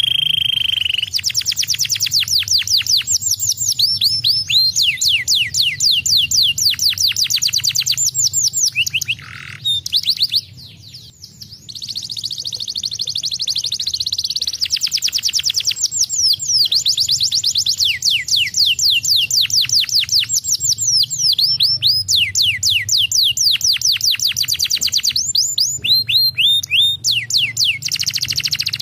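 Domestic canary singing long, fast trills of sharply falling high notes, about eight a second, broken by a short pause about ten seconds in before the song resumes.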